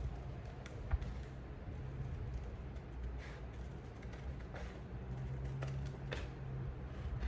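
Scissors snipping through folded colour paper in short, scattered cuts, over a steady low hum.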